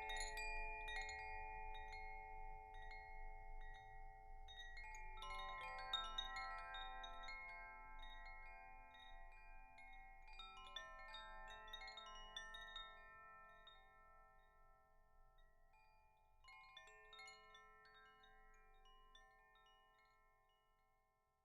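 Chimes ringing in slow clusters of light strikes, about four clusters, each group of metal tones ringing on and slowly dying away, the whole fading out near the end.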